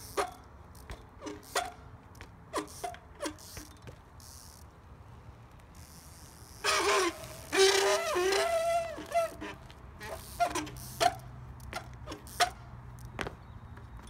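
20-inch trials bike being hopped and balanced on pavement: sharp knocks of the tyres landing, light ticking and creaking from the bike, and a loud wavering squeal lasting about two and a half seconds in the middle, typical of hydraulic rim brakes grabbing the rims.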